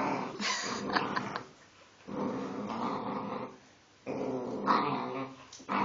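Boxer puppy growling in play, in three bouts of a second or so each with short pauses between them.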